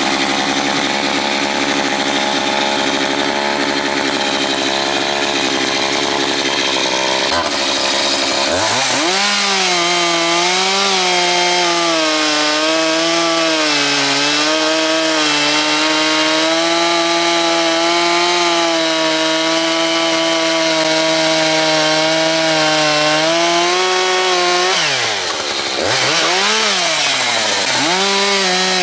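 Echo CS-620P two-stroke chainsaw running at high revs while cutting firewood, its pitch wavering as the chain loads and unloads in the wood. Near the end the engine drops off twice and revs back up as the throttle is released and squeezed again.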